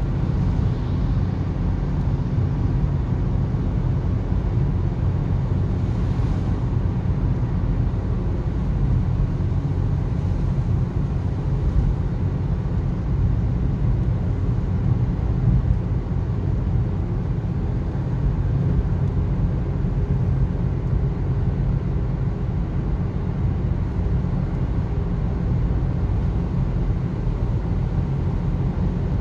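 Steady low rumble of a car driving at motorway speed, tyre and engine noise heard inside the cabin.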